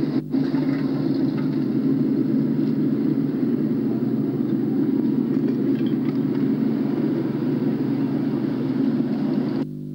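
Motor vehicle engines running with a steady, dense rumble on an old cine-film soundtrack. The sound cuts off abruptly near the end, leaving a low steady hum.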